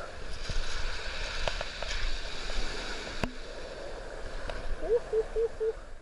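Small sea waves breaking and washing over a pebble shore, a steady surf wash.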